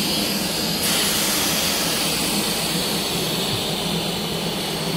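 Air rushing steadily out of a Kampa inflatable awning's air beams through its opened valves as the awning is deflated.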